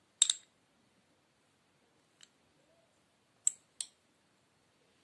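A metal spoon clinking against a small ceramic bowl while desiccated coconut is scooped out. There is a sharp double clink near the start, a faint tick about two seconds in, and two more clinks about three and a half seconds in.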